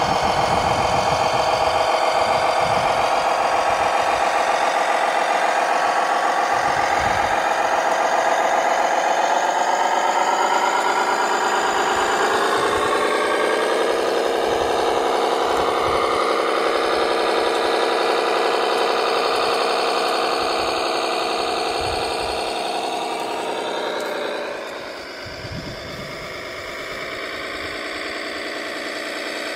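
Radio-controlled construction model running with a steady engine-like drone. The pitch shifts about twelve seconds in, and it drops quieter about twenty-four seconds in.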